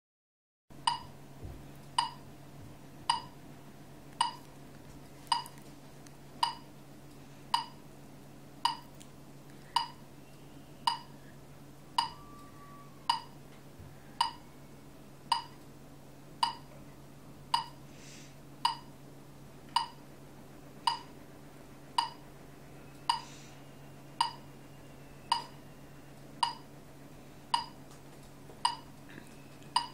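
Steady, regular ticking, about one sharp tick a little more than once a second, each with a short pitched ring, over a low steady hum.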